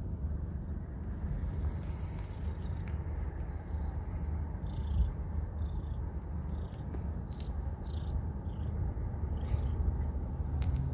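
Black cat purring close to the microphone, a steady low rumble, with light rustles and clicks scattered over it.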